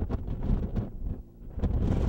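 Wind buffeting the camera microphone in irregular gusts, a low rumble that eases a little past the middle and picks up again near the end.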